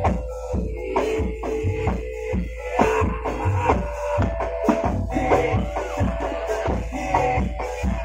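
Live Javanese barongan ensemble music: a quick, busy pattern of drum strokes over steady ringing pitched tones.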